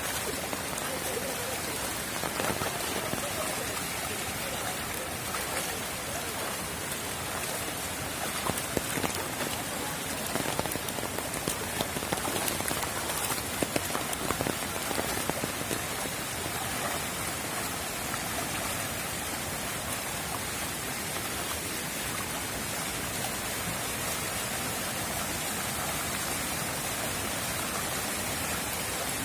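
Steady, even rushing water noise from heavy rain and floodwater, with a run of sharper splashes or taps about eight to fifteen seconds in.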